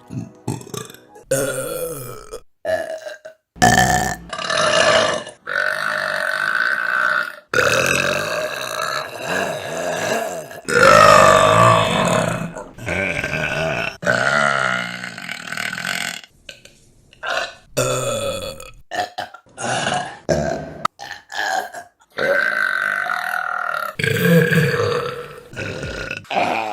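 A string of women's burps, one after another, each cut off abruptly where the next clip starts. Several are long and drawn out, lasting a few seconds each, with the pitch sliding about.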